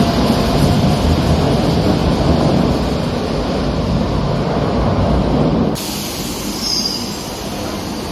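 Madrid Metro train running through the station with a loud rumble of wheels on rail. About three-quarters of the way in the sound drops suddenly to a quieter rumble, with a brief high squeal near the end.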